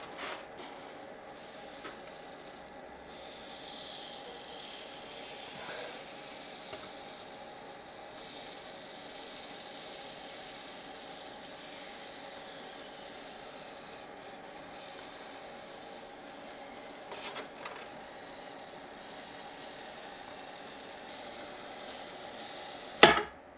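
Hot-wire foam cutter slicing through an insulation-foam fuselage: a steady hiss and scrape as the foam block slides along the cutter table and the heated wire melts through. A sharp knock sounds near the end.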